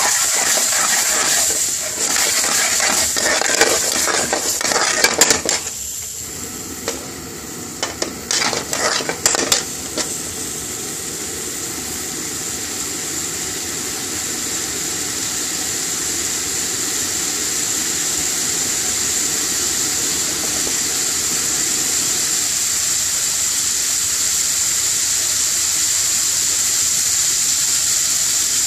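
A metal spoon stirs and scrapes potato pieces through thick curry sauce in an aluminium frying pan, knocking against the pan, for about the first ten seconds. After that the sauce sizzles steadily over the gas flame, slowly growing louder.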